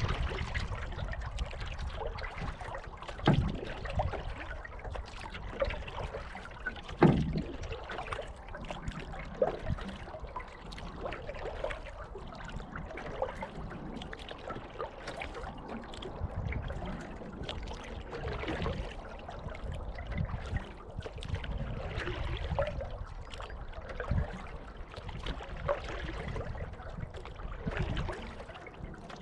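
Water splashing and trickling around a canoe from paddling: the paddle dips and drips against a steady wash of water, with a few louder splashes, the loudest about seven seconds in.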